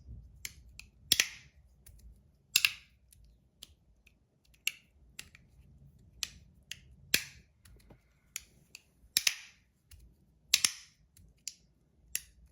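Handheld metal fidget toy being worked back and forth, giving irregularly spaced sharp clicks and snaps, several louder ones with a brief metallic ring; its two contact surfaces are stainless steel on one side and Teflon on the other.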